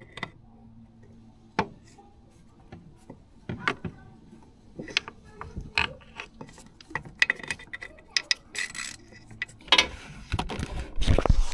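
Irregular metallic clicks and clinks of hand tools being worked in a van's engine bay, getting busier about halfway through, with louder knocking and handling bumps near the end.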